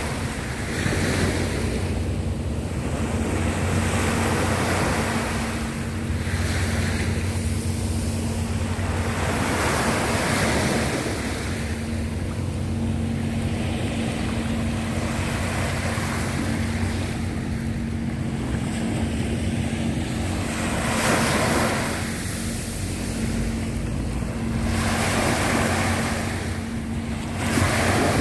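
Sea waves washing onto the shore, the rush swelling and falling back every few seconds, with wind buffeting the microphone. A faint steady low hum runs underneath.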